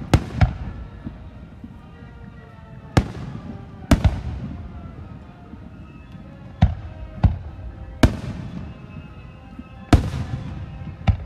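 Fireworks shells bursting overhead: about nine sharp booms, irregularly spaced one to three seconds apart, each trailing off, over a low rumble.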